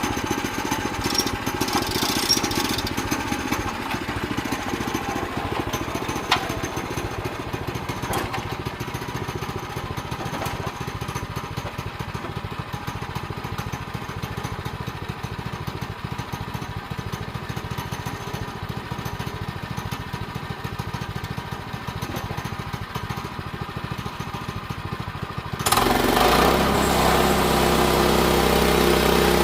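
Sawmill's small gasoline engine running steadily. Near the end, an engine sound abruptly takes over, louder and idling with a steady low hum.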